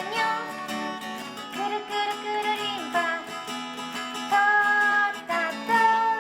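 Music: acoustic guitar with a melody line of long held notes.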